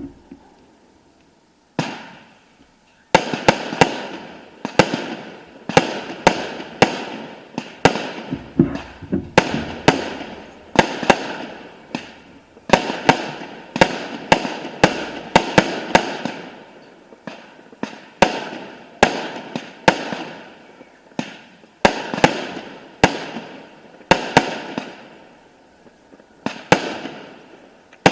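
Fireworks display: after a brief lull, aerial shells burst in quick succession, sharp bangs roughly one or two a second, each trailing off.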